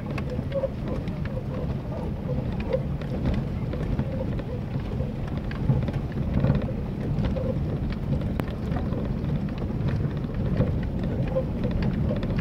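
Off-road vehicle driving over a rough dirt track, heard from inside the cabin: a steady rumble of engine and tyres with frequent small knocks and rattles as it bumps along.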